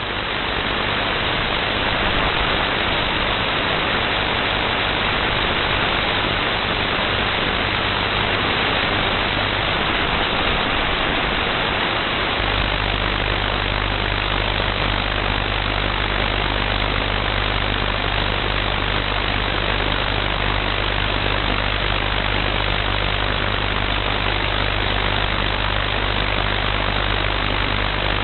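Shortwave receiver hissing with loud, steady radio-frequency interference noise that blots out the band, with a low hum underneath that gets stronger about twelve seconds in. It is man-made interference of unknown source, which makes listening around 8 MHz impossible.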